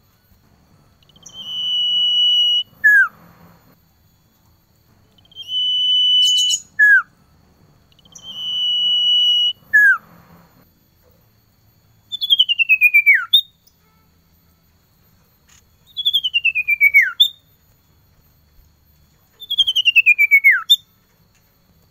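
Male common iora calling: three long, level, high whistles, each ending in a short falling note, then three falling trilled whistles with pauses between them.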